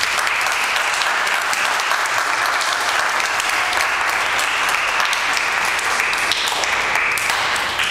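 A small congregation applauding steadily, many hands clapping together.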